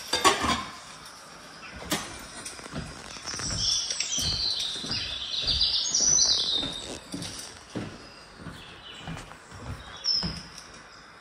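Small birds chirping and twittering in quick runs, loudest in the middle and again briefly near the end, as from a cat-TV bird video on an Echo Show's speaker. A short, sharp sound comes right at the start.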